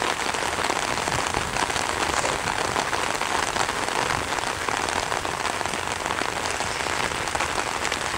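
Steady rain falling on an umbrella held just over the camera: a dense, even hiss of countless small drop hits that does not let up.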